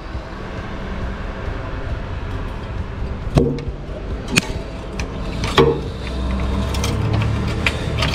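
A few sharp clicks and light knocks, about a second apart and then bunched near the end, over a steady low rumble: hands handling parts in a car's engine bay.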